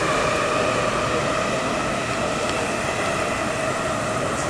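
MTR SP1900 electric train running along an underground platform behind the screen doors: a steady rumble of wheels on rail with a motor whine that slowly falls in pitch, easing a little near the end.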